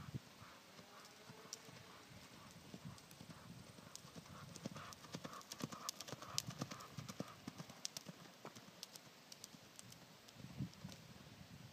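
Faint hoofbeats of a small pony cantering on sand footing, a rhythmic run of dull thuds that grows louder around the middle as the pony passes close, then fades as it moves away.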